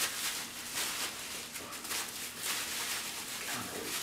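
Clear plastic parts bag crinkling and rustling as it is handled and opened by hand.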